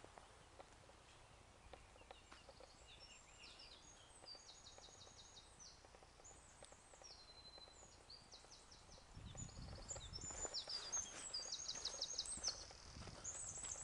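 A small songbird singing, repeating high, quick trilled phrases. About two-thirds of the way through, footsteps on a gravel track come in and are the loudest sound.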